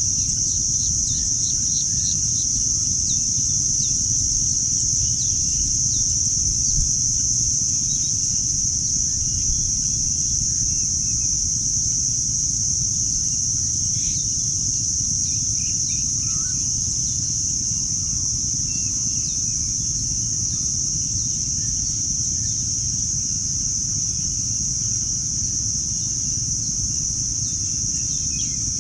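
Outdoor nature ambience: a steady, high-pitched insect drone from crickets or similar insects, with birds chirping now and then, a quick run of repeated notes at the start. A steady low rumble runs underneath.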